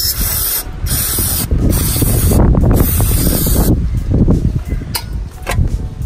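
Aerosol brake cleaner sprayed onto a brake caliper in several short hissing bursts during the first couple of seconds, washing off brake fluid after bleeding to check for leaks. A low rumbling noise follows for about a second and a half.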